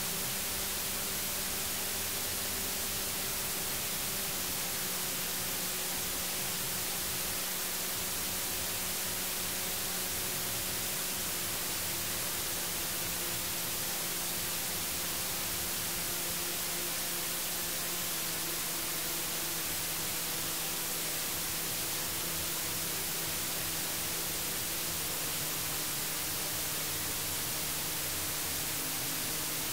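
Electronic soundtrack of steady white-noise hiss, with a faint low drone underneath that steps down slightly in pitch about every seven seconds.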